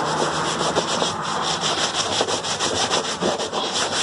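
A hand rubbing over the wet PVC wall of an inflatable hot tub, scrubbing off leftover mould-stain residue: a continuous scratchy rubbing made of many small, irregular strokes.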